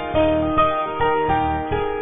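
Background music: a keyboard melody of held notes, with a new note about every half second.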